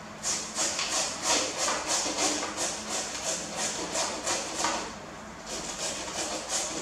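A potato being scraped back and forth over a hand grater, making rhythmic rasping strokes about three a second. The grating stops briefly just before the five-second mark, then starts again.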